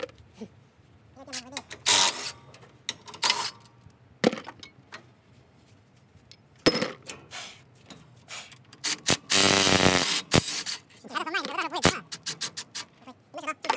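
Metal tools and bolts clinking and knocking as parts are unbolted, then a cordless power tool runs in one burst of about a second, two-thirds of the way through, the loudest sound.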